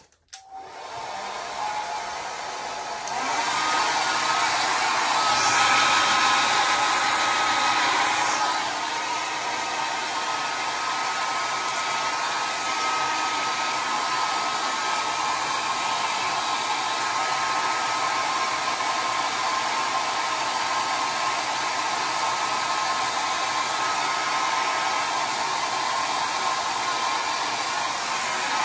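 Handheld hair dryer switched on and blowing steadily with a thin whine, louder for a few seconds shortly after it starts, then even.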